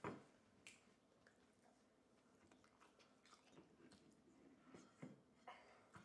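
Faint sounds of a dog eating from a plate: soft chewing with scattered small clicks, and one sharper click right at the start.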